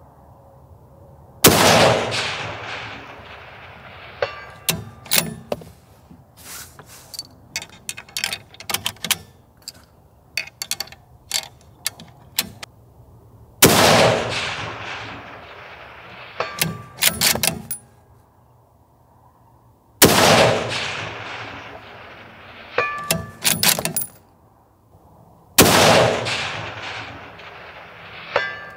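Four rifle shots from a Weatherby Mark V CarbonMark Elite bolt-action in 6.5 Creedmoor, each followed by a long rolling echo. Between the shots come quick runs of metallic clicks as the bolt is worked to chamber the next round.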